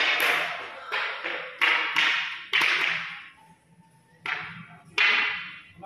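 Scout drill staves knocking against the tiled floor in unison, a string of about eight sharp knocks at uneven spacing, each trailing off briefly.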